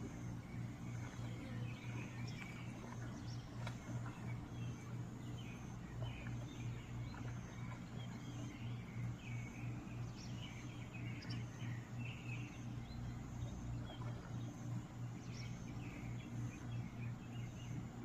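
A steady low hum, pulsing slightly, with many short high bird chirps scattered over it.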